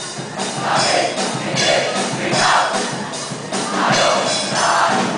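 Music with a steady beat and a large crowd of voices chanting along in unison, swelling and falling in rhythm a little faster than once a second.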